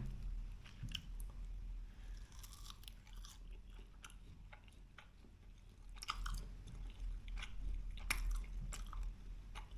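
Close-up sound of a person chewing a beef meatball, with soft, wet mouth clicks and smacks scattered through and coming more often near the end.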